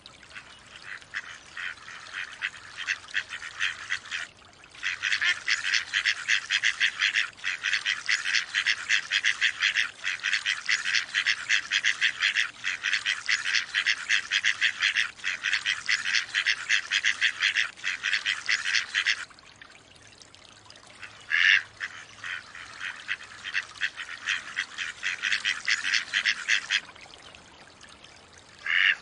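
Mallard ducks: long runs of rapid short chattering sounds, several a second. Single louder quacks come about two-thirds of the way in and again at the very end.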